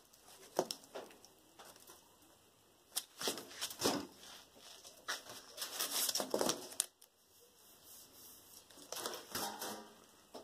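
Cardboard template and bent sheet-steel panel being handled: rustling and scraping of cardboard against metal, with light taps and clatters of the sheet metal, in irregular bursts.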